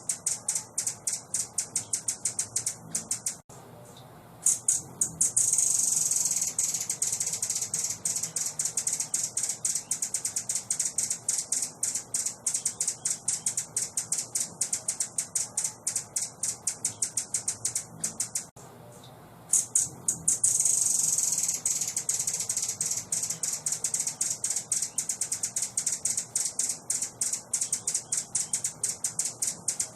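A small songbird's song-training (masteran) recording: a rapid run of high-pitched ticking chatter, broken twice by a short pause and then a long, high buzzing trill.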